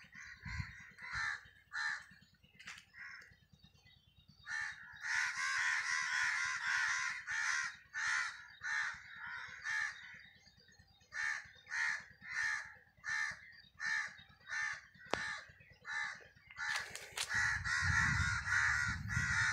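Crows cawing over and over, a dense run of overlapping calls followed by single caws spaced under a second apart. A single sharp click about fifteen seconds in.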